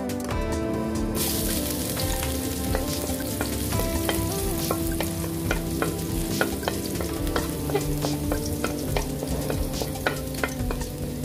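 Minced garlic sizzling in hot oil in a metal wok. The sizzle starts about a second in, and a wooden spatula stirring through it makes frequent clicks and scrapes.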